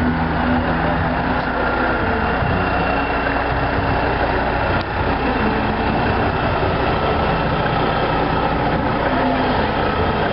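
Heavy diesel truck engine running steadily, with a brief dip near the middle.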